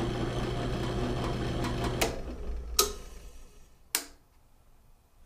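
Porter-Cable PCB660DP floor drill press running with a steady, not-at-all-loud motor hum, switched off about two seconds in and winding down. Three sharp clicks come as the switch is worked, the loudest near three seconds in.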